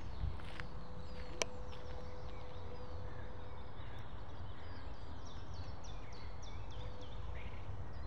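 Small songbirds chirping, many quick high falling notes, over a steady low rumble. A single sharp click about a second and a half in.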